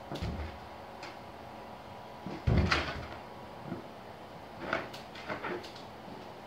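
Large punch balloon on a rubber-band tether being batted by hand and arm: one dull thump about two and a half seconds in, with a few lighter taps around it.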